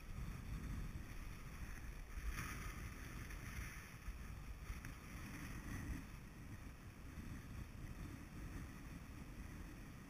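Low, steady rumble of wind on the microphone, with a couple of faint rustles about two seconds in and again near five seconds as hands handle the line and the catch.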